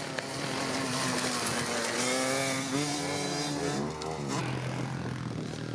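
Minicross bike engine revving hard, its pitch climbing steadily under acceleration, then rising and falling quickly around the jump about three to four seconds in before settling at lower revs.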